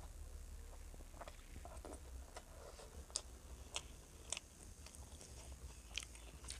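A person chewing a mouthful of rice and curry close to the microphone, with wet mouth clicks and lip smacks; from about three seconds in, a run of sharp clicks comes roughly every half second.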